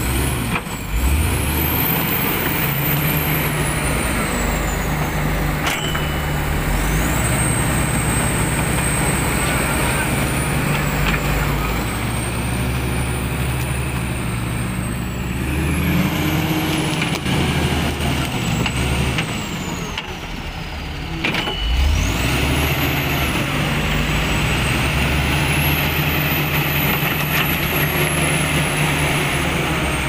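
Heavy diesel engine of a crawler bulldozer running hard under load as it pushes a loaded log truck stuck in mud. The revs shift a few times, dropping around twenty seconds in and picking up again just after.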